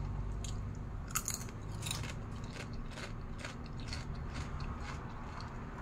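Doritos tortilla chips being chewed: a series of crisp crunches, about two a second.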